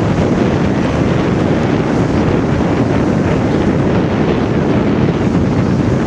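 Wind blowing across the camera microphone: a loud, steady rushing noise with no breaks.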